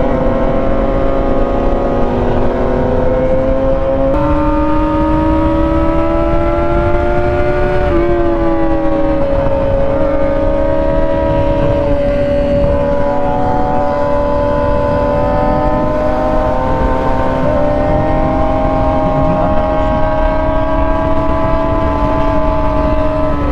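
Yamaha R6 inline-four engine running at steady cruising revs, its note holding with slight rises. The pitch steps up about four seconds in and dips briefly around eight and twelve seconds, over a steady low rumble.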